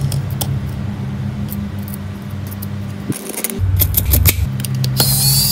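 Light clicks and scratches from steel tweezers and a stiff brush working inside an opened iPad's mud-caked frame, with brush scrubbing near the end. Background music with a steady low bass runs under it.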